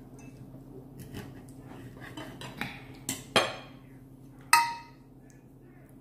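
Cutlery clinking and scraping on dinner plates during a meal: a string of scattered clicks, the loudest two a little past the middle, the second ringing briefly.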